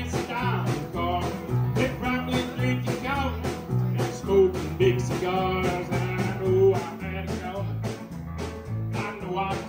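Live country band playing amplified: electric guitars, keyboard, bass and drums with a steady beat.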